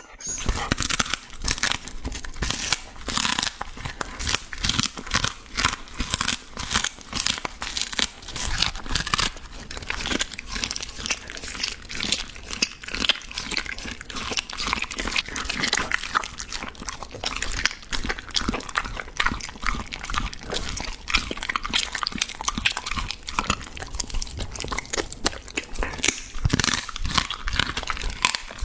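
A border collie biting and chewing raw meat, with many quick, irregular wet crunches and chomps close to the microphone.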